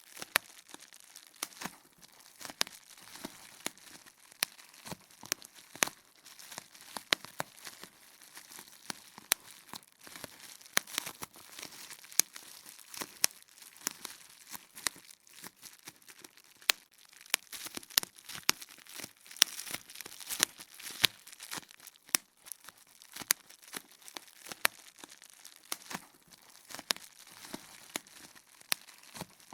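Bubble wrap popping: irregular sharp pops over the crinkling of the plastic sheet.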